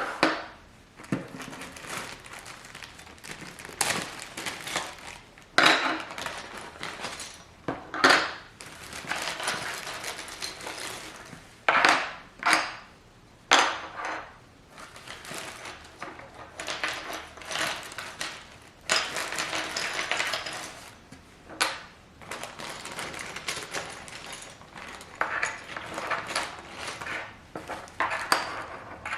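Hard plastic PBT keycaps clicking and clattering irregularly as they are handled, with sharp single clicks between short rattling bursts.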